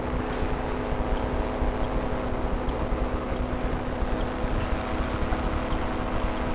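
Microlight trike's engine and propeller droning steadily at cruise in flight, one constant pitch, with wind rumbling on the microphone.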